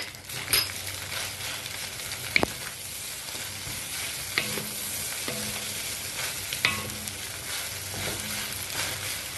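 Fried rice sizzling in a hot wok while a wooden spatula stirs and turns it, with a few sharp knocks of the spatula against the wok.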